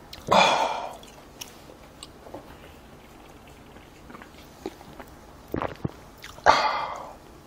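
Two loud breathy exhales from a man, one just after the start and one near the end, the second just after he has taken a long drink from a can. Faint small clicks of swallowing and handling of the can come between them.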